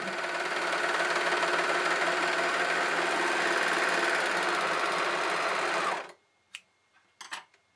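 Overlock sewing machine (serger) running at a steady speed, stitching and trimming a fabric edge, then stopping abruptly about six seconds in. A few short clicks of scissors cutting the thread chain follow.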